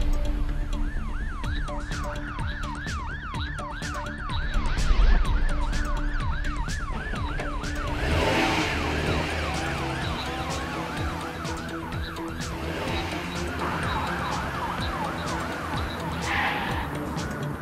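Cartoon emergency-vehicle siren in a fast yelp, sweeping up and down about three times a second, over background music. About eight seconds in it thickens, with a further siren and more noise joining in.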